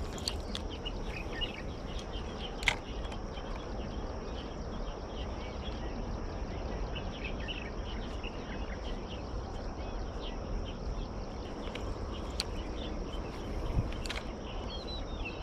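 Outdoor ambience of a steady, high insect drone with scattered short bird chirps over a low rumble. A few sharp clicks are heard, the loudest about three seconds in.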